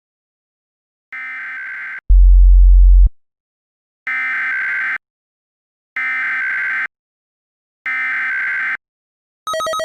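Synthesized emergency-alert tone: a pitched beep about a second long repeating every two seconds. A single very loud, low buzz follows the first beep, and a fast warbling alarm tone starts near the end.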